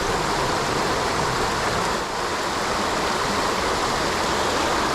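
Creek water running fast over rocks: a steady, even rush with no breaks.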